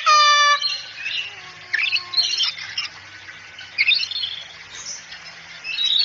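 Cockatoo calling: a loud, drawn-out squawk at the start, followed by shorter squawks and chirps every second or two.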